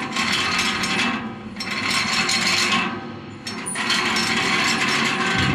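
Rope rasping and rattling as a bucket is let down on it into an old stone well, in three long pulls.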